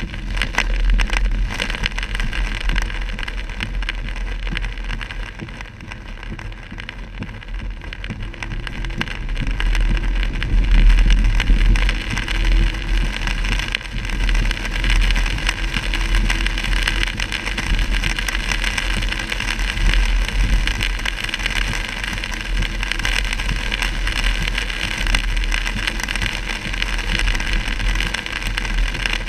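Heard from inside a car: the steady rush of heavy rain and tyres on a wet road, over a low rumble. It is louder for a spell about ten seconds in.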